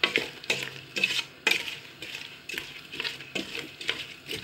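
Wooden spoon stirring diced apples cooking in sugar and lemon juice in a steel pot, scraping and tapping irregularly against the metal sides and bottom.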